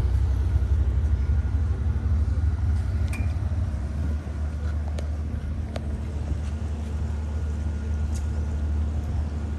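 Steady low rumble of a motor yacht's engines as it manoeuvres to dock, easing off a little over the first few seconds. A few sharp clicks sound over it.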